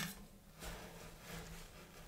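Metal spatula on a steel ice-cream cold plate: one sharp tap at the start, then soft scraping as it pushes under a frozen strip of ice cream to roll it up, over a faint low hum.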